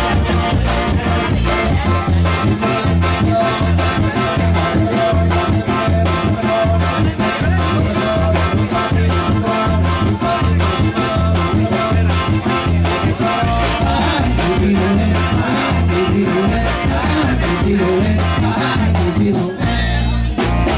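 A live band playing up-tempo Latin dance music through a PA system, with a steady fast beat and heavy bass; the texture changes near the end.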